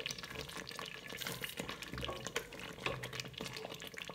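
Wooden spoon stirring a thick, simmering peanut sauce with meat in a stainless steel pot: wet stirring noise with many small, irregular pops and clicks.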